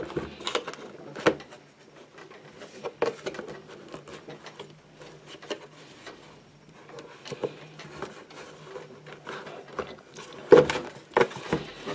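A battery being worked and pressed down into a tight-fitting plastic ammo can: scattered knocks, scrapes and rubs of the battery against the box walls. The loudest knocks come right at the start and again about ten and a half seconds in.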